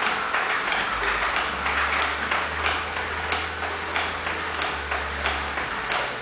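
Mechanical puppet's clockwork-like mechanism running: irregular clicks and taps about twice a second over a low motor hum that starts about half a second in, with faint high pings.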